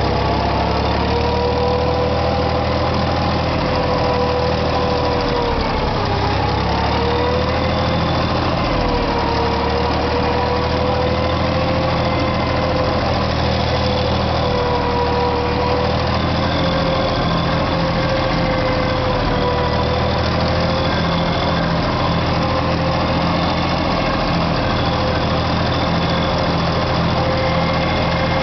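Barreiros 4000V tractor's diesel engine running steadily while pulling a plough, heard from the driver's seat. Its pitch sags about six seconds in and briefly again a few seconds later as the engine takes the load, then recovers.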